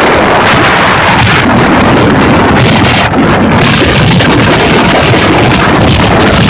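Heavy wind buffeting the microphone of a motorcycle moving at speed, a loud, unbroken rush with gusty surges, with the bike's engine running beneath it.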